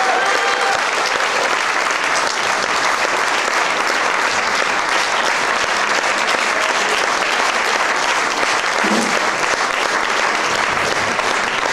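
Audience applauding steadily, a dense run of clapping with no break.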